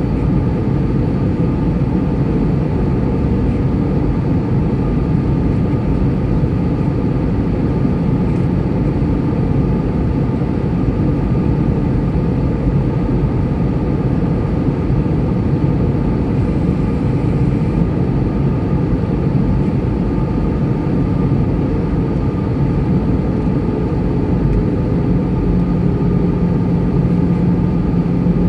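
Cabin noise from a window seat over the wing of an Airbus A320-214 in flight: the steady sound of its CFM56 engines and the airflow past the fuselage, with a low hum that grows louder near the end.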